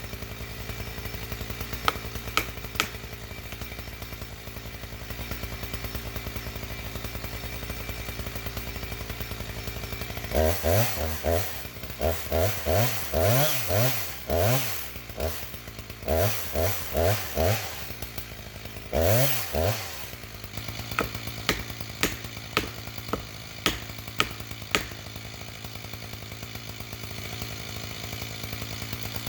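Husqvarna 359 chainsaw revved in a string of short bursts, each rising and falling in pitch, for about ten seconds in the middle. Before and after, an engine idles steadily with scattered light clicks.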